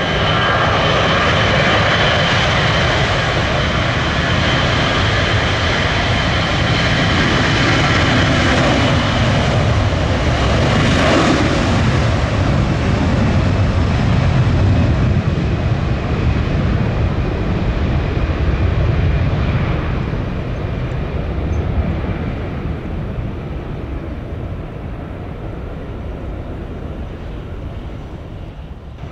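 Jet airliner passing close by, its engine noise building to a peak about eleven to fifteen seconds in, with a whine over the rumble. The noise then slowly fades as the aircraft moves away.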